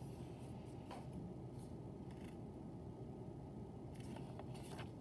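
Quiet room tone: a steady low background hiss with a few faint, brief rustling or scraping sounds, about five over the stretch.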